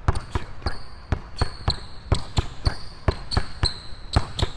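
A basketball dribbled hard and fast on a hardwood gym floor, about three to four bounces a second, worked through crossovers and between-the-legs dribbles.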